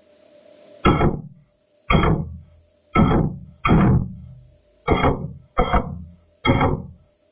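Orion capsule's attitude-control thrusters firing in short pulses, heard inside the cabin: about seven sudden thumps with a brief rushing tail, two of them in quick succession near the end, over a faint steady hum.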